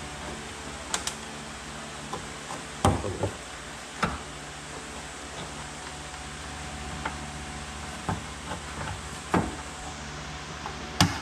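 Scattered light clicks and knocks, every second or two, from fabric and a small hand tool being worked against the metal body rail of a VW Beetle convertible while the top is fitted. A steady hum runs underneath.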